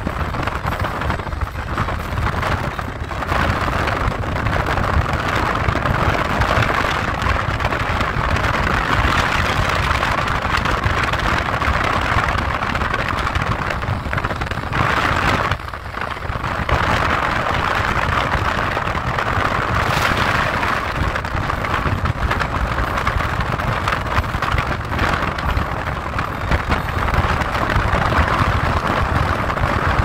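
Road and wind noise from a car driving at speed on a highway: a steady rush of air and tyre noise over a low rumble, dipping briefly about halfway through.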